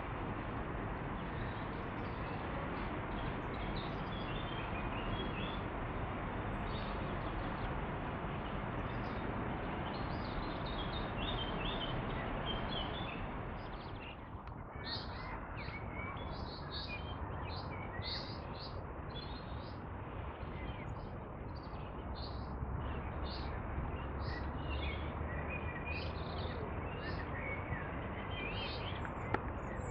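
Wild birds singing and chirping. Over the first half there is a steady rushing noise that drops away about halfway through, after which short bright calls repeat about once a second.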